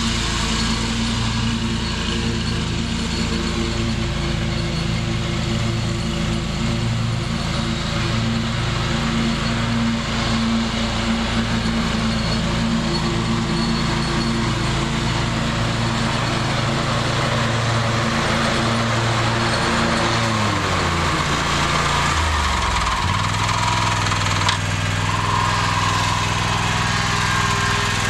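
Scag Tiger Cat zero-turn mower's V-twin engine running steadily as it mows. About twenty seconds in the engine note drops and settles lower. Near the end a thin squeal joins in, which the owner takes for a drive belt going bad.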